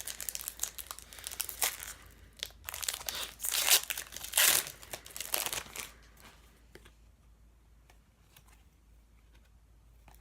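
A Panini Prism trading-card pack's wrapper being torn open and crinkled, a rapid crackling for about six seconds, then only faint rustles and clicks as the cards are handled.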